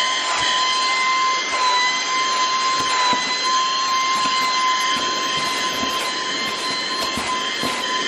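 Greenote GSC50 cordless stick vacuum cleaner running with its crevice nozzle on upholstery: a steady high whine over the rush of sucked air, with a few brief soft knocks as the nozzle is moved over the fabric.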